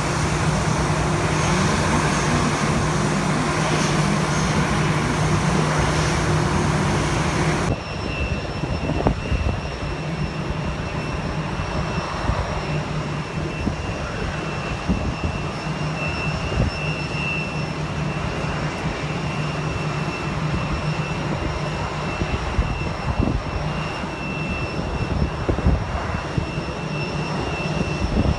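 Aircraft engines running steadily, with a low hum and a high, steady whine. About eight seconds in the sound changes abruptly to a somewhat quieter, duller engine drone, with a few faint clicks.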